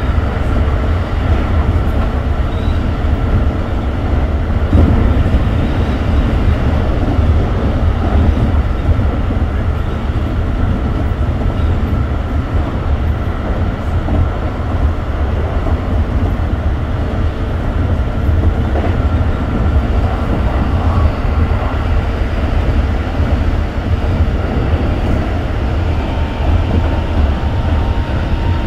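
Running sound inside a Keikyu New 1000 series (Siemens-inverter set 1025F) train car at speed: a steady, loud low rumble of wheels and running gear, with faint steady tones above it.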